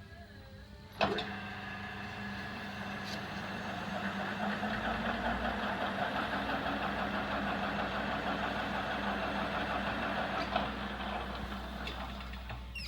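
Lathe switched on with a sharp click about a second in, then running steadily with the crankshaft turning in it; a deeper hum joins a few seconds later, and the sound eases off near the end.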